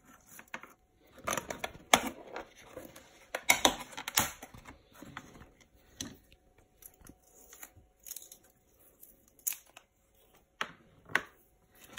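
Hands handling small plastic deli cups and a clear plastic tub, with a sticker label peeled from its backing: irregular clicks, taps and short rustles.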